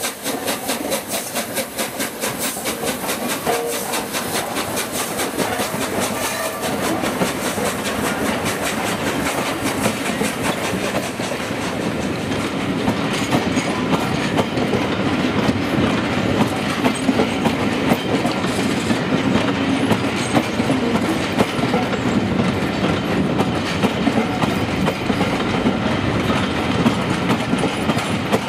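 Steam-hauled passenger train passing close by: the locomotive goes past with a fast, regular beat, then a long rake of coaches rolls by, wheels clattering over the rail joints, the rumble growing a little louder towards the end.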